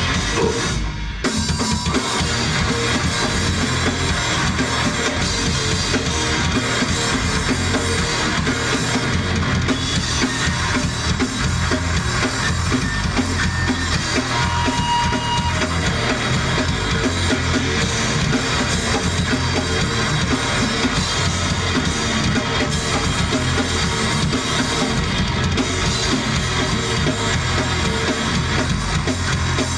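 Live rock band playing loud and dense, with guitars and a full drum kit with a pounding bass drum. It drops out briefly about a second in, then carries on without a break.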